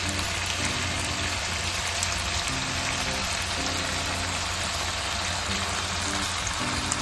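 Chicken liver adobo sizzling in a pan: a steady hiss with small crackles. Soft background music plays under it, a slow line of short low notes.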